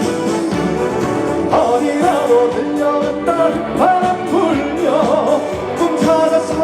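Live trot music: a band playing with a wavering sung melody line over it.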